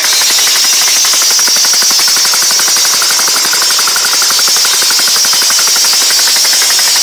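Small air-cooled two-stroke engine running on compressed air from a compressor instead of fuel: a fast, even chatter of pulses over a steady hiss of air.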